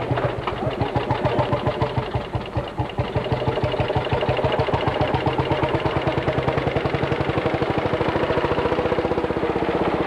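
Lanz Bulldog tractor's single-cylinder two-stroke engine running, with a rapid, even beat.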